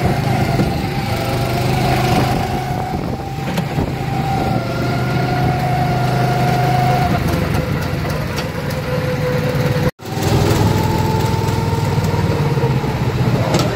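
Small go-kart engine running at speed, a steady low hum with a whine that slowly shifts in pitch. The sound drops out for a moment about ten seconds in.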